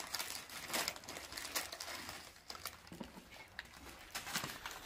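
Plastic instant-noodle packets being torn open and handled, giving a run of short, sharp crinkling rustles.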